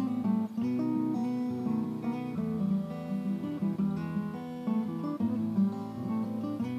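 Background music: acoustic guitar, plucked and strummed notes and chords.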